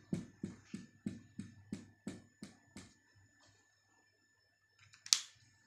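Marker pen on a whiteboard drawing quick diagonal hatching strokes, about three a second, nine in a row, then stopping; one sharp tap about five seconds in.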